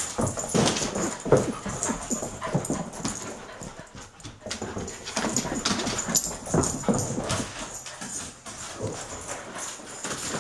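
Two dogs, a collie and a Belgian Tervuren puppy, playing rough: short, irregular dog whines and noises, mixed with the scuffle and click of paws and claws on a wooden floor and rug.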